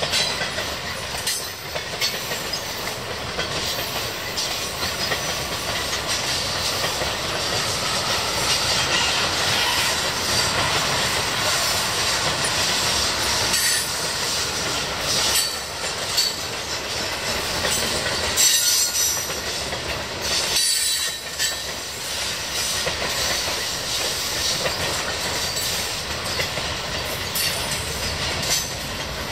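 Freight train cars rolling past: a steady rumble of steel wheels on rail, with clicks at rail joints and, at times, wheel squeal.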